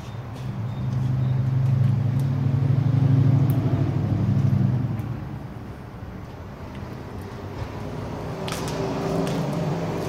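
2010 Camaro SS 6.2-litre V8 through a dual exhaust with the resonators deleted and Clone Super 10 mufflers fitted. It is revved up about a second in and held for a few seconds, then drops back to idle about halfway through. There is a smaller rise near the end.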